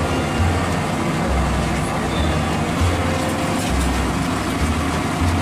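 Hot oil sizzling as a large batch of batter-coated pakoras deep-fries in a big kadai, over a steady low rumble.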